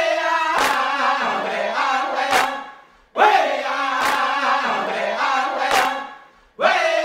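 Dramatic trailer music: voices chanting the same phrase twice, about three seconds each, punctuated by sharp percussive hits.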